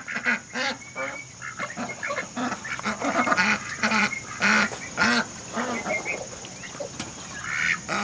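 Small flock of domestic ducks quacking and chattering, with many short calls in quick succession.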